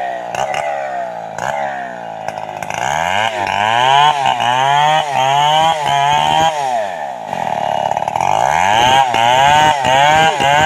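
Large two-stroke chainsaw running in a log. Its engine speed falls over the first couple of seconds, then rises and drops again and again, about twice a second, with a brief slowdown about two-thirds of the way through.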